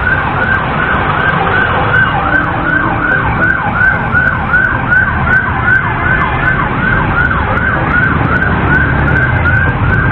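Siren in a fast yelp, its pitch sweeping up and down about three times a second, over the rumble of road traffic and wind.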